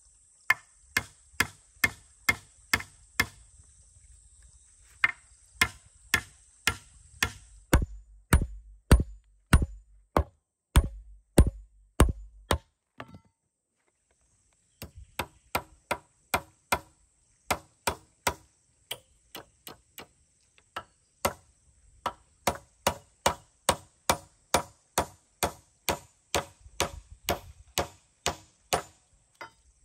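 Hammer knocking on wooden poles in a steady series of blows, about two a second, with a short break in the middle; the blows in the middle stretch are heavier.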